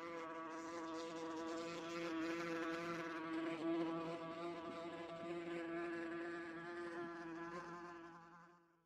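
Wasp buzzing in flight: one steady, even-pitched buzz that fades out near the end.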